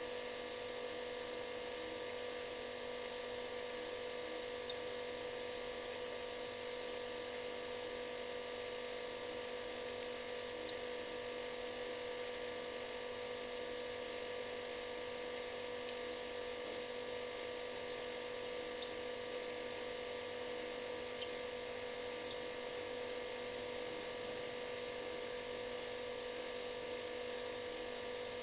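Refrigerator running with a steady electrical hum and buzz: one strong mid-pitched tone with several fainter tones over an even hiss.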